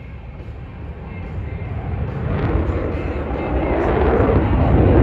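Aircraft engine noise, a roar that swells steadily louder as the plane approaches.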